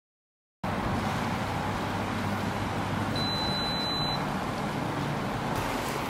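Pet hair dryer box's fan blowing steadily with a low hum, starting about half a second in after a moment of silence.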